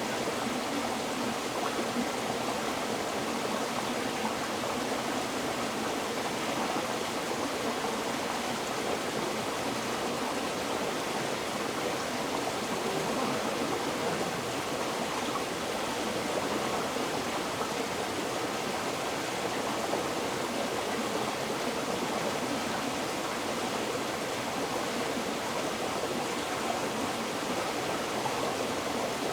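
River water flowing steadily over rocks, an even rushing and babbling without pause.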